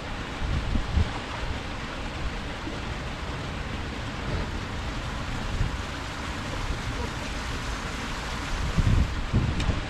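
Steady rush of flowing canal water, with wind buffeting the microphone in low rumbles near the start and again near the end.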